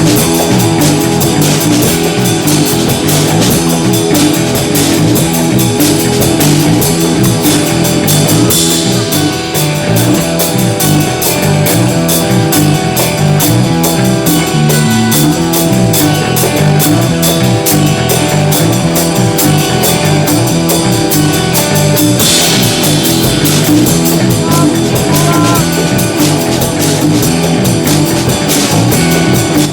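Background music: an upbeat rock-jazz instrumental with guitar and a steady drum-kit beat.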